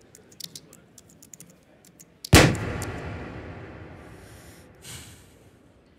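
A run of quick light clicks, then a single loud boom-like impact a little over two seconds in that dies away slowly over about two seconds, followed by a short hiss near the end.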